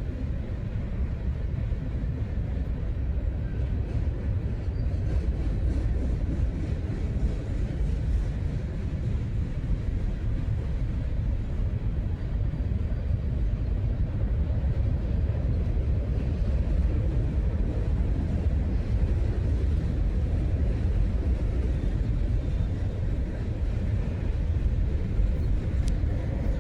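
CSX freight train rolling past, a steady low rumble without breaks.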